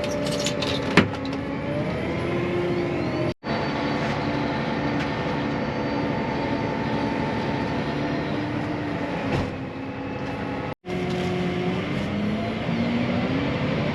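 Farm machinery engine running steadily, its pitch shifting a little and rising near the end. The sound cuts out completely for an instant twice.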